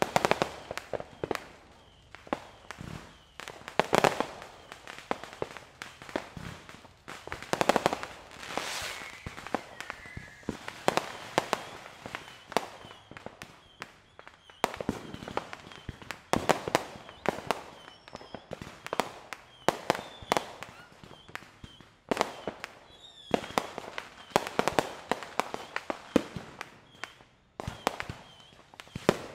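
Fireworks display: an irregular string of aerial shell bangs and sharp crackling pops, with louder clusters of bursts every few seconds.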